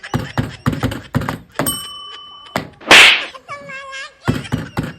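A bell rings once with a clear ding about a second and a half in, among a run of quick knocks and thuds. About three seconds in comes the loudest sound, a short sharp smack, followed by a brief wavering call.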